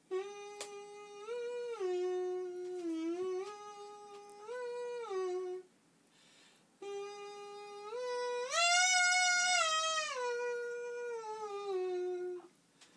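A man hums a tune into his fist held at his mouth: a single melodic line of held notes stepping up and down, in two phrases with a short break a little before halfway. The highest and loudest notes come about two-thirds of the way through.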